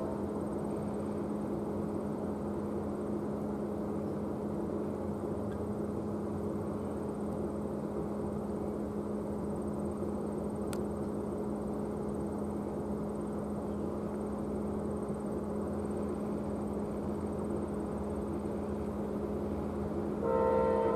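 A steady low engine drone with a constant hum, then a train horn sounds a chord of several notes about a second before the end.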